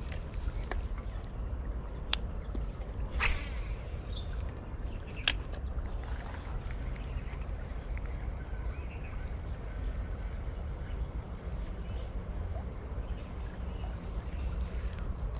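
Insects, such as crickets, trilling steadily in one high, even tone, over a low rumble, with a few sharp clicks and a brief rustle.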